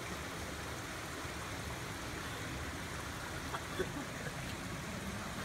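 Steady rushing background noise with a few faint short sounds a little past the middle.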